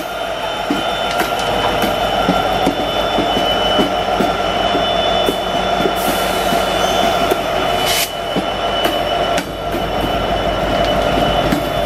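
A double-stack container train passing close by, with its mid-train EMD SD70 diesel locomotive running as it goes past. A steady high whine sounds over the engine, with wheels clicking regularly over the rail joints and a brief hiss about six seconds in.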